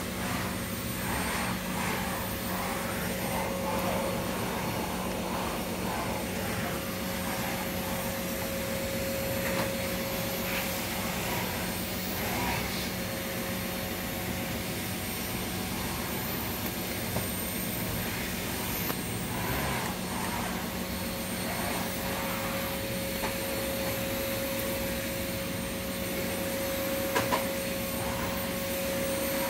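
Steady drone of a vacuum cleaner motor running throughout, with a higher tone in it that fades out for a few seconds in the middle. Faint crunching of a cat eating dry kibble from a steel bowl can be heard under it.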